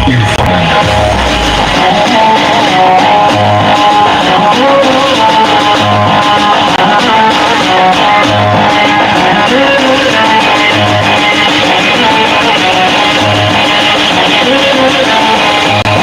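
Music with a plucked guitar-like melody played loud over a big sound system with sixteen subwoofers, a low bass hit landing about every two and a half seconds.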